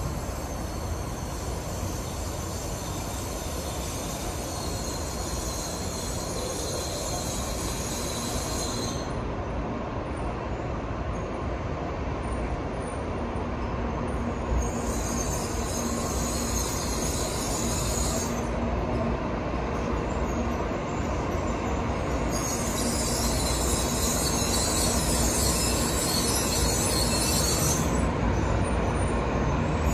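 N700-series Shinkansen pulling in along the platform, its rolling noise growing steadily louder as it nears. A high hiss cuts in and out several times over the steady rumble.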